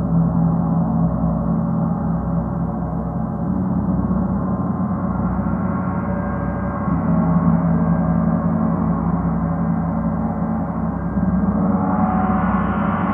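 Gong played in a long, sustained wash of many overlapping tones, swelling louder three times: at the start, about seven seconds in, and near the end.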